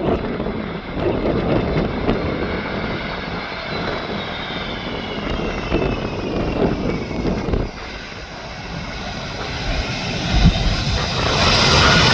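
Airbus A330-300 jet engines (Pratt & Whitney PW4168A) on landing: a steady jet noise with a whine falling in pitch as the airliner passes, then a broader, louder roar building near the end.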